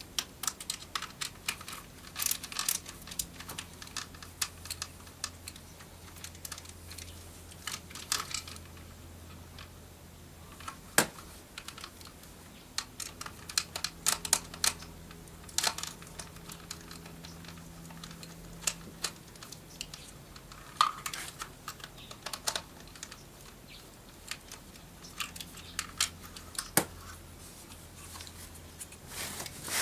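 Irregular light clicks and taps of a Phillips screwdriver and screw against the plastic power window switch panel of a 2005 Toyota Camry door, with a few sharper knocks, as the last screw is worked into place.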